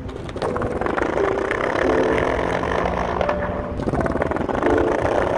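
Skateboard wheels rolling over concrete paving blocks: a rough continuous rumble with rapid clicking as the wheels cross the joints between the blocks.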